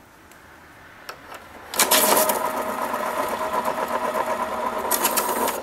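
X-ACTO School Pro electric pencil sharpener: a couple of faint clicks as the pencil goes in, then about two seconds in the motor starts and the steel cutters grind the pencil steadily for about four seconds, cutting off near the end as the automatic pencil stop halts the cutters once the pencil is fully sharpened.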